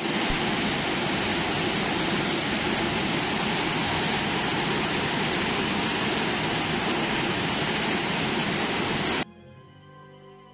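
Floodwater torrent rushing down a town street, a loud steady rush of water. It cuts off suddenly about nine seconds in, and soft background music follows.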